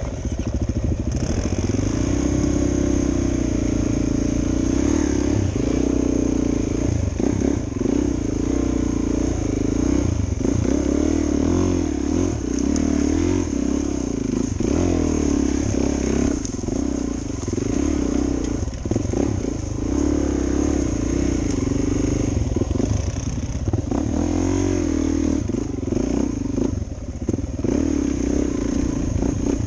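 Suzuki DR 400 dual-sport motorcycle's single-cylinder engine running under way, its revs rising and falling continually as the throttle is worked.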